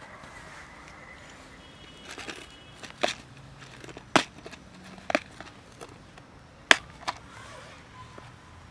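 Plastic snap-lock food container being opened by hand: a handful of sharp, loud plastic clicks a second or so apart as the lid's clips are unsnapped.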